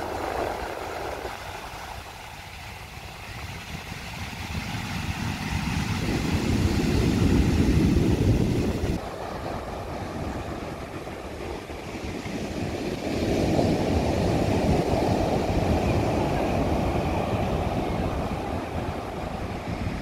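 Rough surf breaking and washing up a sand beach, with a deep rumble of wind on the microphone. The noise swells and ebbs with the waves, loudest a few seconds before the middle and again through the second half.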